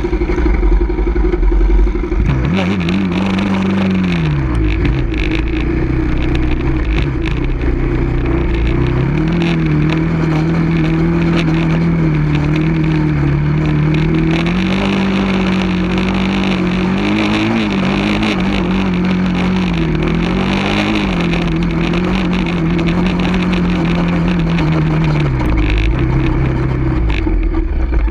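Off-road vehicle engine running as it is ridden along a trail: the engine note drops a few seconds in, then holds fairly steady with a few swells in pitch as the throttle is worked, and falls away near the end, over a constant low rumble.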